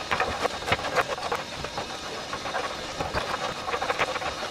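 Concrete flat shake roof tiles clacking against one another, many irregular knocks, as they are pulled off a roof conveyor and passed along for stacking, over a steady hiss.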